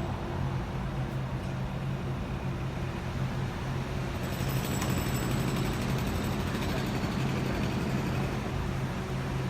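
A large engine running steadily, a low, even drone with a rough noisy rattle over it.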